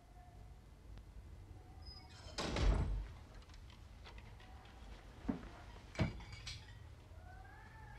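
A door being handled: a loud scraping rush about two and a half seconds in, then two sharp thuds less than a second apart.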